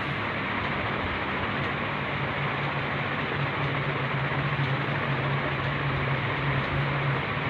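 Steady rushing noise with a low hum running under it, with no distinct events.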